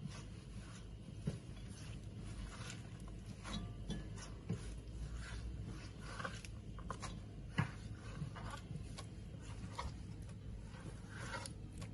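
Faint scattered light clicks and rustles of food being handled, with one sharper click about seven and a half seconds in.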